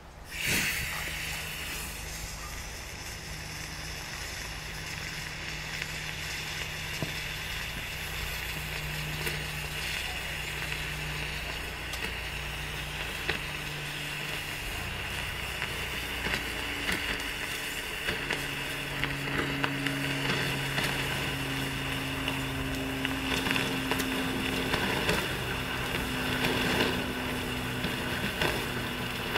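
Homemade potassium nitrate and sugar rocket motor with magnesium in the mix, catching from its black-powder primer about half a second in with a sudden flare, then burning in place with a steady rushing noise and constant small crackles.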